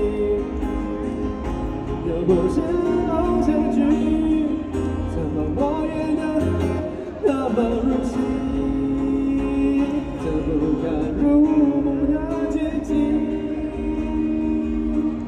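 A man sings a Mandarin pop ballad into a microphone while strumming his own acoustic guitar.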